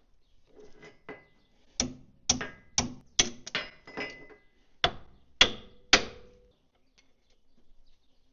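A hand hammer striking steel on a Caterpillar D4D bulldozer's track-tensioner assembly, about ten sharp blows in two quick runs, the later ones leaving a short metallic ring.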